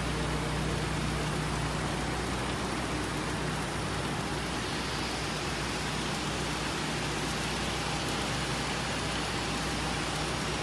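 Steady machine noise from a running conveyor line on a combined metal detector and checkweigher: an even hiss over a low electrical hum, with no distinct knocks or reject strokes.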